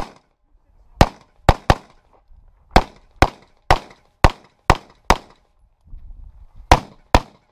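Handgun fired in a rapid course of fire: eleven sharp shots, mostly in quick pairs about half a second apart, with a pause of over a second near the end before a last pair.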